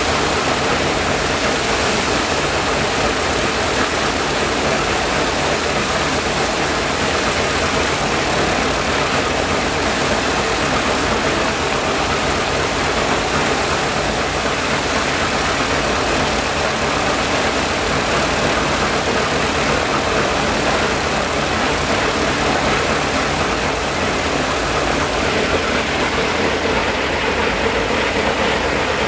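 Ilyushin Il-14T's left Shvetsov ASh-82T fourteen-cylinder radial engine running steadily, propeller turning, in a ground run after start-up.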